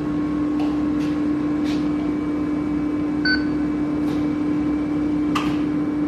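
Wheel balancing machine spinning a car wheel with a steady hum during its measuring run, which finds the imbalance and where the weights go. The machine gives one short electronic beep about three seconds in.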